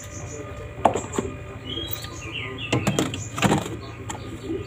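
Plastic food containers knocked and shifted on a refrigerator shelf, a few sharp clicks and knocks, with small birds chirping in the background.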